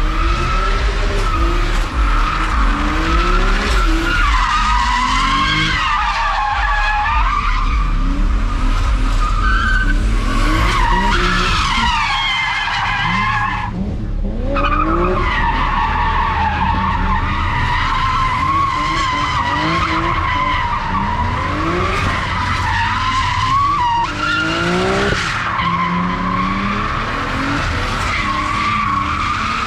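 A BMW drifting: its tyres squeal in a long, wavering screech while the engine revs up again and again underneath. The squeal breaks off briefly about halfway through and once more near the end.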